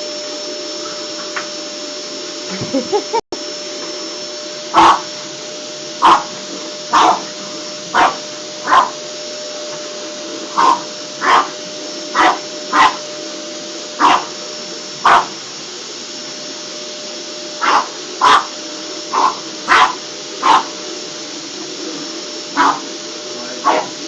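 Vacuum cleaner running steadily while a French bulldog barks at it in short sharp barks, one to two a second with brief pauses. A few quick yelps come near the start.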